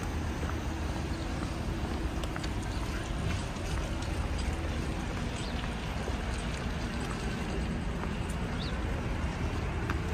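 Steady outdoor city ambience: a continuous low rumble under an even hiss, with a few faint clicks and a brief high chirp about eight and a half seconds in.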